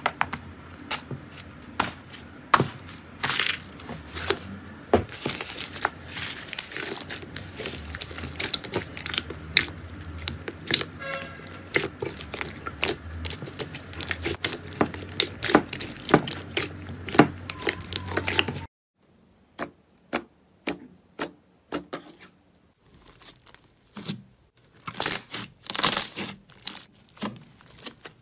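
Slime being pressed and kneaded by hand: a dense run of crackling and tearing as a dried, crisp skin on the slime breaks up under the fingers. About two-thirds of the way through it changes to a different slime, with separate soft squelching pops and clicks in near-quiet between them.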